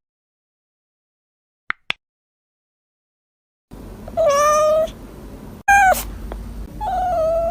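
A cat meowing three times, short falling calls about a second apart, starting about halfway in after near silence broken by two quick clicks.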